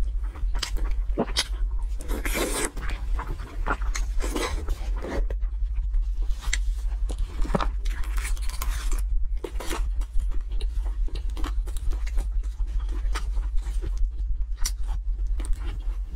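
Close-up eating sounds: crisp bites into fried pastry, chewing and wet mouth clicks in an irregular patter, over a steady low hum.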